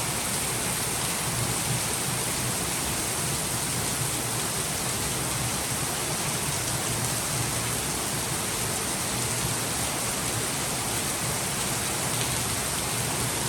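Steady rain falling on a car, with a low hum of engine and road noise underneath.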